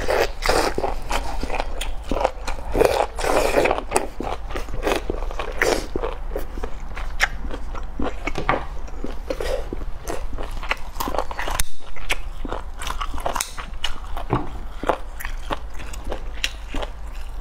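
Close-miked eating sounds: biting and chewing a tough, rubbery piece of sesame-sauce-coated skin, with many sharp wet clicks and smacks. Gloved hands tear the piece apart.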